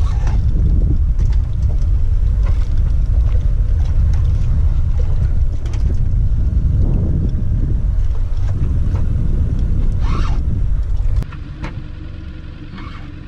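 Loud, buffeting rumble of wind on the microphone over open water, with a few faint clicks. It drops suddenly to a much quieter hiss about eleven seconds in.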